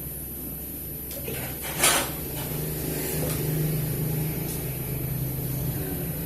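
A steady low hum, with one brief, sharp noisy sound about two seconds in and a few faint ticks after it.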